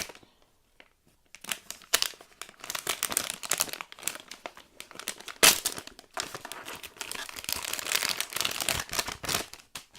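Blind-bag packaging of a squishy toy being torn open and crinkled by hand, with a sharp loud crack about halfway through.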